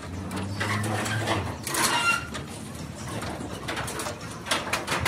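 Scattered light clicks and knocks, with a low hum over the first second and a half and a short high chirp about two seconds in.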